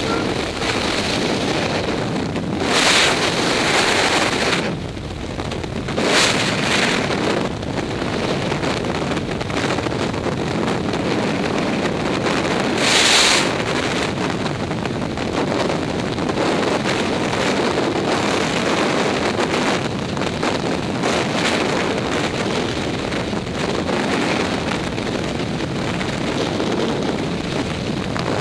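Wind buffeting the microphone over a steady rumbling noise, with louder gusts about three, six and thirteen seconds in.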